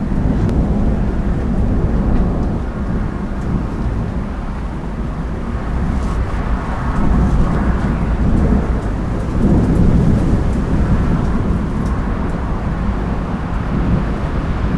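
Thunder rumbling from an approaching thunderstorm, a long low roll that swells twice around the middle, with light rain ticking faintly.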